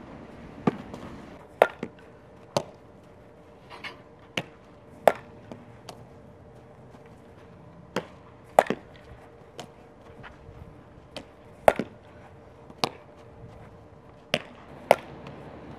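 Softballs cracking off a bat and popping into leather gloves: more than a dozen sharp knocks spread unevenly, some in quick pairs.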